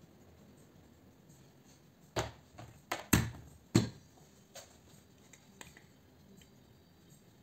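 A brass fitting stripped from a steam iron set down on a workbench, with tools clinking as they are handled: a cluster of sharp knocks about two to four seconds in, then a couple of faint taps.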